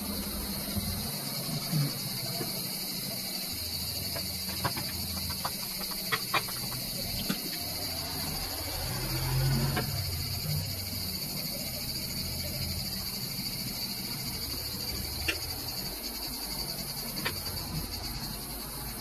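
Steady high-pitched chirring of insects, like a cricket chorus, with scattered small clicks as wires and a small circuit board are handled.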